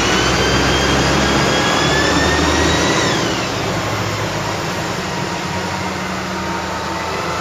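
A motor's high whine over a steady low hum. The whine rises slowly, then drops away about three seconds in.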